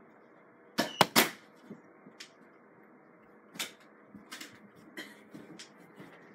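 Sharp clacks and taps: a quick run of three loud ones about a second in, then scattered softer clicks.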